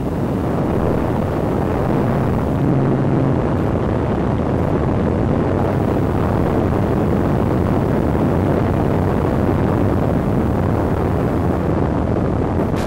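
Steady rush of airflow and electric motor noise picked up on board a Multiplex Cularis RC motor glider in flight, its propeller turning.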